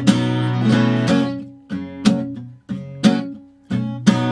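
Acoustic guitar strummed in a steady rhythm, each chord ringing on between strokes.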